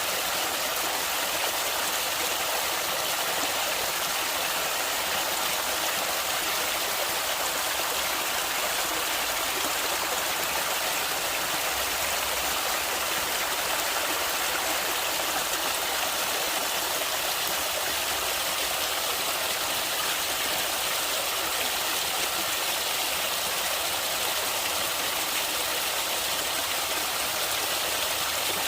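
Stream water flowing steadily, a constant rushing hiss with no breaks or changes.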